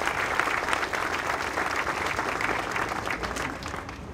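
A crowd applauding, many hands clapping at once, dying away near the end.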